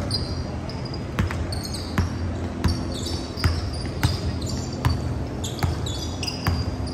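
A basketball dribbled on a hardwood gym floor, a run of sharp bounces at an uneven pace, with short high squeaks of sneakers on the court.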